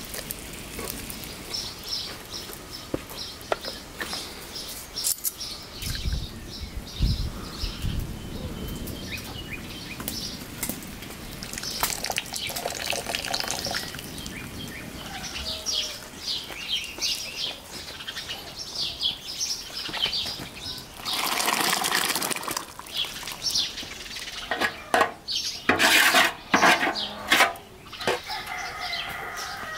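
Small birds chirping in repeated short bursts, with a few knocks and a couple of louder rushing noises, and a rooster beginning to crow near the end.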